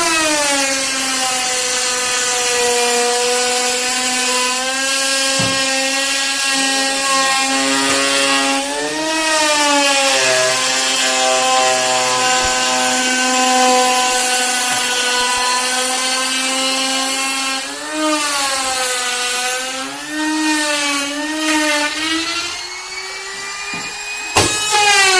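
Electric woodworking power tool running and cutting wood: a steady motor whine that drops in pitch several times as the cut loads it, then recovers. A sharp knock comes near the end.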